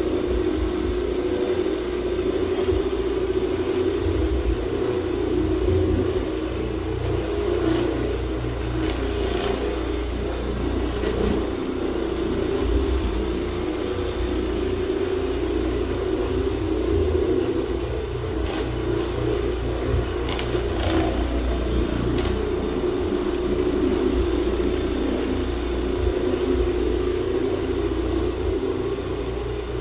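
Electric rotary carpet-cleaning machine running steadily on carpet for low-moisture cleaning: a constant motor hum over a low rumble, with a few faint ticks in the middle.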